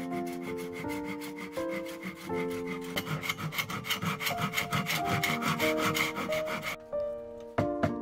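Bamboo being cut with a hand saw: quick, even rasping strokes that stop abruptly about seven seconds in, under background piano music.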